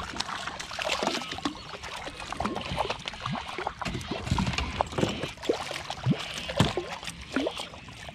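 Water splashing and dripping right around a fishing kayak: an irregular run of small plops and splashes.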